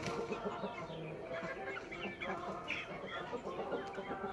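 A flock of Vietnamese fighting chickens (gà chọi), adults and half-grown young birds, making many short, overlapping calls.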